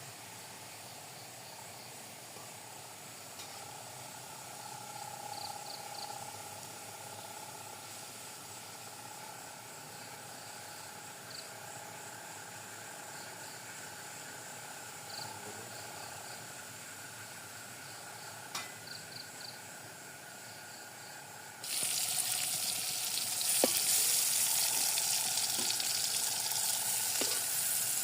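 Quiet night background with faint short high chirps. About three quarters of the way through, food goes into hot oil and a loud, steady sizzle of frying starts suddenly, with a few sharp clicks of a utensil in the pan near the end.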